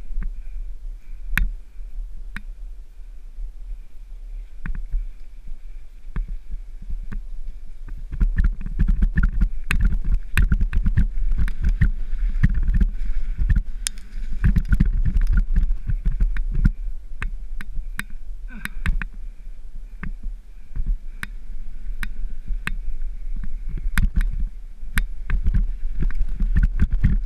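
Downhill mountain bike running over a rough dirt trail, heard from a helmet-mounted camera: a continuous rumble of wind buffeting the microphone and tyres on dirt, with frequent sharp clatters of chain and frame over bumps. It grows louder about eight seconds in.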